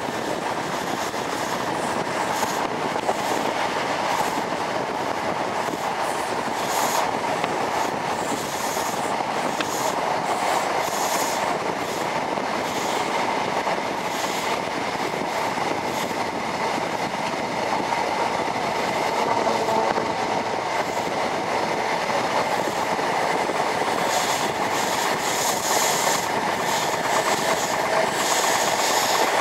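High Speed Train coach running at speed, heard at an open window: steady rushing wind and wheel-on-rail rumble with rapid clicks of the wheels over the track. The clatter grows brighter and louder near the end.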